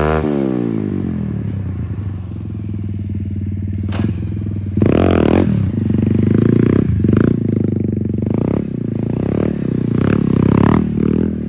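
Bajaj Pulsar 220's single-cylinder engine running, its revs falling back to idle, a sharp click about four seconds in, then a series of throttle blips rising and falling in pitch. No starter grinding is heard now that the defective starter motor has been replaced.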